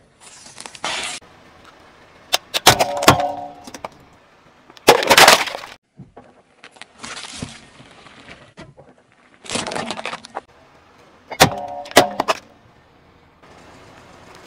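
A car tyre rolling over and crushing disposable plastic lighters, which crack and snap sharply several times, with one loud burst about five seconds in. The sounds come in short separate bursts with softer tyre-on-asphalt noise between them.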